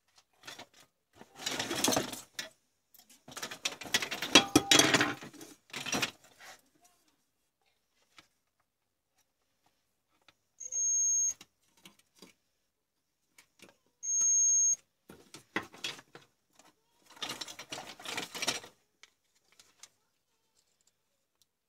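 Digital multimeter's continuity buzzer beeping twice, each a high steady beep about half a second long, a few seconds apart, as the probes touch the leads of a CFL tube's filament: the beep means the filament conducts. Before and after the beeps, crackling and clicking from hands handling the plastic bulb housing and test leads.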